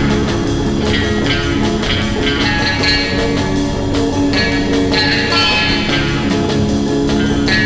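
Background rock music with guitar, at a steady level.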